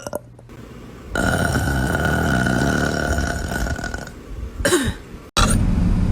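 A burp with a falling pitch, about three-quarters of the way through, after a stretch of steady noise. Near the end the sound cuts abruptly to the low rumble of a car interior.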